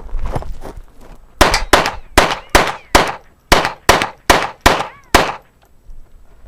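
Rapid pistol fire: about ten shots at a steady pace of roughly two to three a second, the string ending about five seconds in.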